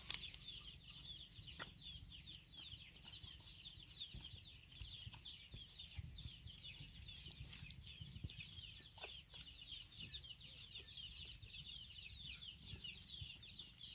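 Faint, continuous chorus of many chicks peeping, short high downward-sliding peeps overlapping throughout.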